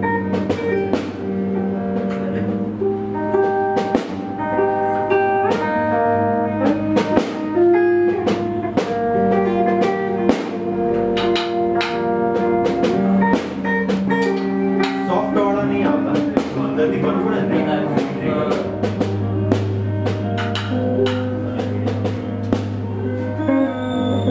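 Guitar notes played over a drum kit, with a sustained low bass tone underneath: a band jamming.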